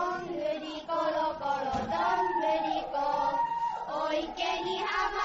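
A child singing a tune, with some notes held long.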